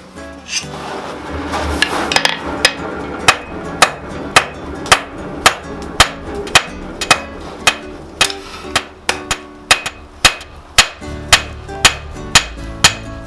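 Hand hammer striking hot steel on an anvil in a steady rhythm, about two blows a second, each with a bright metallic ring. Background music plays underneath.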